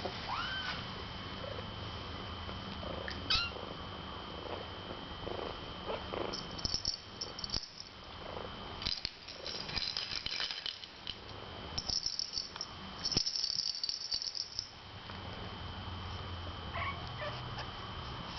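Kittens mewing: a high mew that rises and falls right at the start and a short one about three seconds in. Rattling and rustling noises come through the middle stretch.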